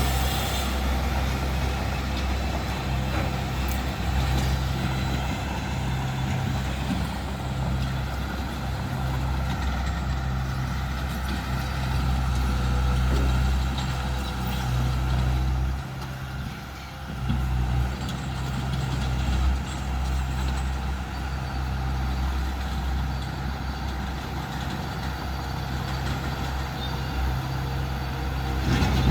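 Diesel engine of heavy earthmoving machinery running steadily, with a deep hum that pulses on and off about once a second. The engine sound drops briefly a little past halfway, then picks up again.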